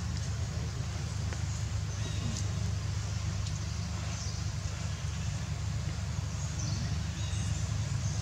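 Steady low outdoor rumble with a few faint, short, high-pitched chirps.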